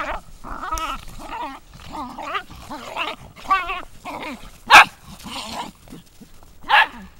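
A dachshund and a Rottweiler wrestling, with repeated short growling and snarling calls. There are two loud, sharp barks, one about two-thirds of the way in and one near the end.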